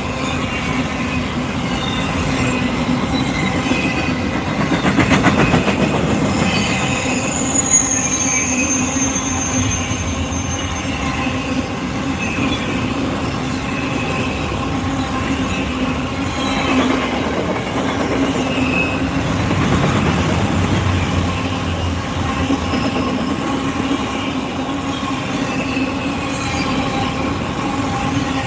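Bilevel stainless-steel passenger train cars rolling steadily past close by, a continuous rumble with wheels squealing. A run of quick wheel clacks comes about five seconds in, and a high-pitched squeal from about eight to eleven seconds.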